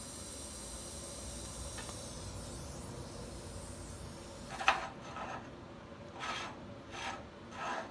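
TIG welding arc hissing steadily with a faint high whine as a stainless steel bolt is welded to a round plate, stopping about a third of the way in. A little past halfway comes a sharp metallic click, the loudest sound, then four short scrapes as the welded part is handled on the steel welding table.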